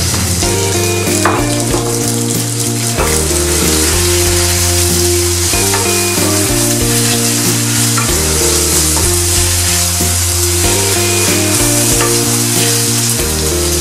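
Marinated pork strips and garlic sizzling as they fry in a hot nonstick pan, stirred and turned with a wooden spatula. Background music plays under the sizzle.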